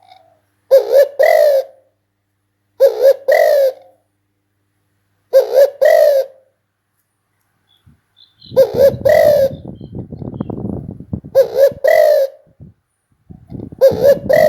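Spotted dove cooing: a short three-note coo repeated about every two and a half seconds, six times. A rough crackling noise sits beneath the later calls.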